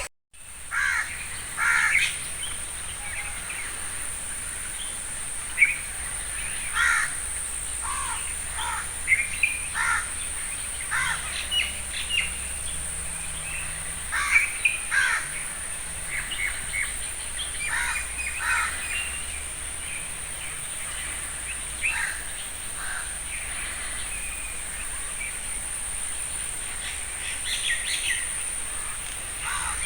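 Birds calling outdoors, many short, harsh calls repeated at irregular intervals, over a steady high-pitched hiss.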